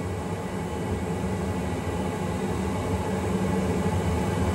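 Okamoto ACC-818NC surface grinder running, its wheel spinning just above the workpiece without cutting: a steady low machine hum.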